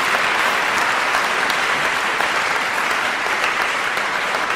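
Audience applauding, a steady, dense patter of many hands clapping.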